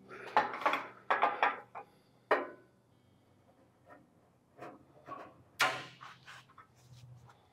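Metal clunks and rattles from the 1958 Ford F100's front sheet metal (fenders and grille) being shifted on the frame: a quick cluster of knocks at the start, a sharp knock a little after two seconds, a louder one about two-thirds of the way through, and light ticks between.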